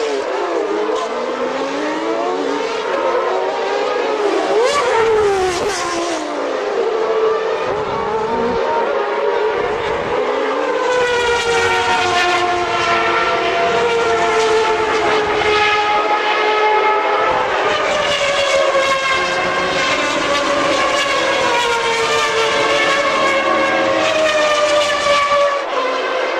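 1992 Formula One race cars' engines at high revs passing on the circuit, several in quick succession early on, their pitch rising and falling as they go by and shift gear.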